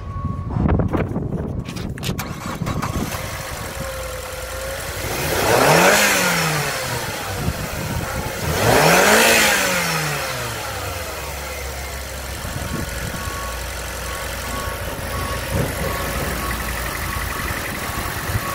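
2006 Mazda 6's inline four-cylinder petrol engine starting up about a second in, revved twice, each rev rising and falling over about two seconds, then settling to a steady idle. An electronic warning beep repeats over the last few seconds.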